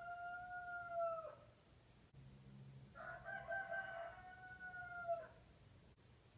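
Rooster crowing: one crow ends about a second in, and a second crow starts about three seconds in, rising briefly and then holding a long steady note for about two seconds.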